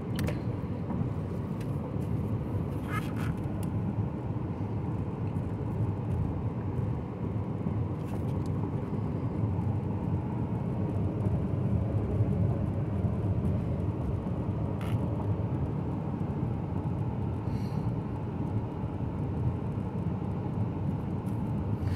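Steady road and tyre noise with the engine's low drone inside the cabin of a 2013 Chevy Cruze cruising at about 61 mph, free of squeaks, rattles or clunks. A few faint ticks come through now and then.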